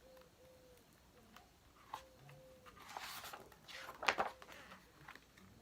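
A page of a picture book being turned and handled: soft paper rustling about three seconds in and a sharp click just after four seconds.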